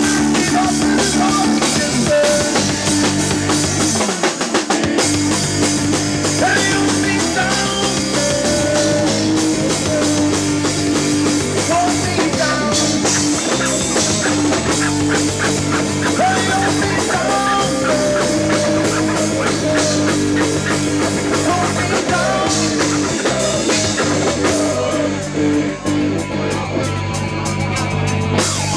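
Live rock band playing loudly: drum kit, electric bass and electric guitar, with a bending lead melody over them.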